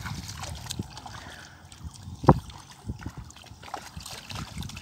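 Shallow muddy water splashing and sloshing as bare feet wade through it and hands grope in it, with scattered small splashes. About two seconds in comes one sharp slap, the loudest sound.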